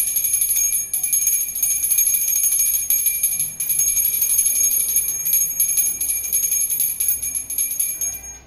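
Small brass prayer hand bell (ghanti) rung rapidly and continuously for the aarti, a steady high metallic ringing that stops abruptly near the end.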